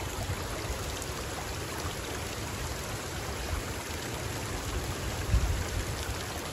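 Steady rush and splash of water from a small waterfall, with one brief low bump about five seconds in.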